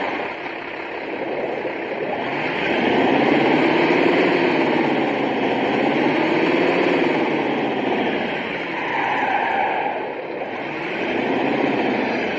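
Simulated engine sound from an RC car sound module playing its tenth engine-sound preset. The engine idles and revs up and falls back several times.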